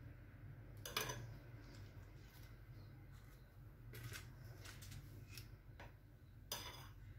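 Faint clicks and light knocks of disposable plastic dessert cups being handled and set down on an aluminium baking tray: a few brief taps, about a second in, around four seconds in and near the end, over a low steady hum.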